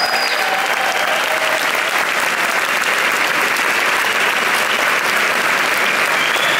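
Concert audience applauding steadily once the song has ended.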